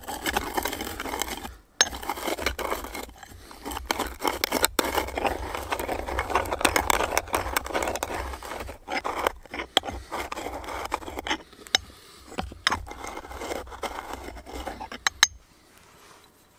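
Black peppercorns being crushed and ground in a small three-legged mortar by a round ball pestle twisted against it: a gritty scraping with many sharp cracks as the peppercorns break, pausing briefly about two seconds in and stopping near the end.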